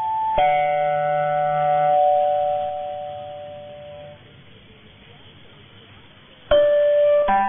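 Slow chime-like music received on a medium-wave AM tuner, cut off above the narrow AM bandwidth. A chord is struck about half a second in and fades away over a few seconds, leaving faint radio hiss, and fresh notes are struck near the end.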